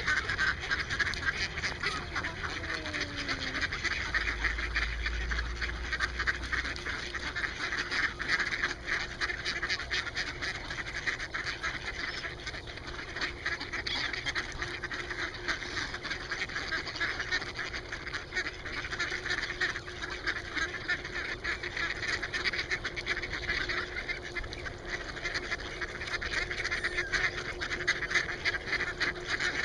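A large flock of mallards quacking and chattering together in a continuous, overlapping chorus. The hungry ducks are crowding in and calling for food.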